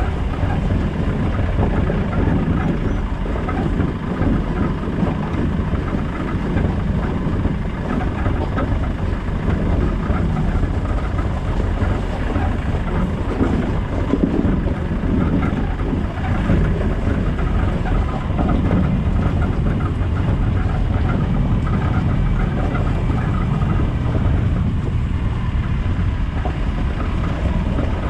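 Land Rover Discovery 200Tdi's four-cylinder turbodiesel running steadily while the vehicle drives off-road, with a constant low rumble and irregular light clatter throughout.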